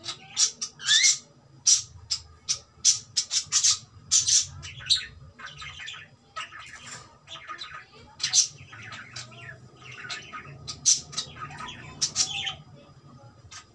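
Pet cockatiel calling in a rapid run of short, high chirps, with one brief rising call about a second in; the calls come thickest in the first half and thin out after the middle.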